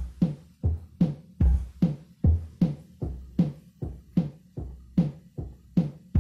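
Yamaha electronic keyboard's drum voices in a steady tick-tock pattern that imitates a clock: evenly spaced hits about two and a half a second, many with a deep bass-drum thud.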